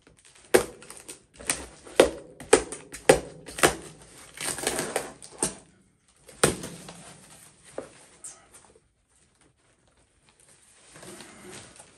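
Cardboard box and packing tape being cut and pried open with a box cutter: a quick run of sharp clicks and knocks, a longer scraping tear about four seconds in, another knock a couple of seconds later, then a short pause and soft rustling of packaging near the end.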